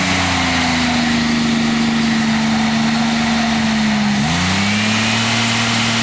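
GM 3.8-litre V6 car engine held at high revs by a piece of wood wedged on the throttle, running steadily with a slight sag in pitch. A little past four seconds in the revs briefly dip and climb back up.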